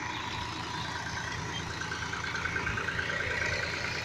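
Massey Ferguson 245 tractor's diesel engine running steadily as it pulls a fully loaded trolley.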